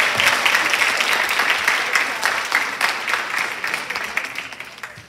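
Audience applauding, a dense crowd of clapping hands that tapers off over the last second.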